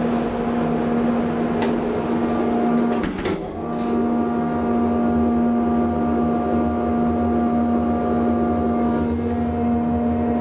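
Inside a 1977 DEVE hydraulic elevator car: a steady hum with a few clicks and a knock about two to four seconds in as the car door closes, then a low rumble from the hydraulic drive as the car starts to travel.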